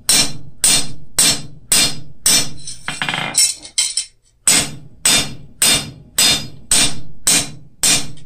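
Hand hammer striking a cold steel cross blank on an anvil, beating flat bevels into its edges: steady ringing blows a little under two a second. About three seconds in the blows stop for a brief clatter as the piece is shifted, then resume at the same pace.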